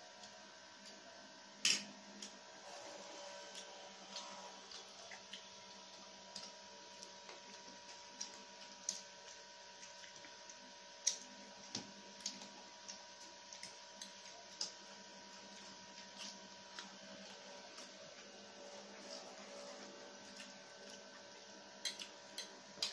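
Eating sounds: scattered short clicks and taps of plastic forks against plates, with chewing of noodles. A steady faint hum runs underneath.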